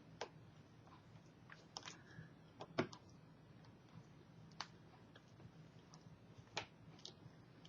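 Faint, scattered clicks and taps of small plastic parts as a laptop LCD video cable connector is handled and fitted to the back of a replacement screen panel, about eight in all, the loudest near the middle.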